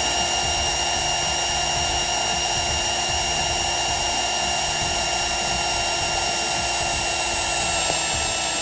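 Cordless drill turning the oil pump of a rebuilt Chrysler 318 V8 to prime its oiling system before the first start. It runs at a steady whine without stopping while oil pressure builds.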